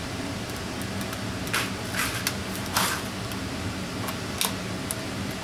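Stiff clear plastic blister packaging crackling as it is bent and pried open by hand: a cluster of sharp crackles in the middle and two more near the end, over a steady background hum.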